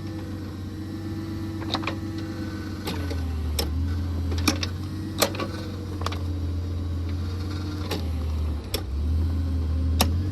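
Engine of a post-hole auger machine running steadily, its note dropping lower and heavier from about three seconds in until near the end, with several sharp knocks and clicks scattered through.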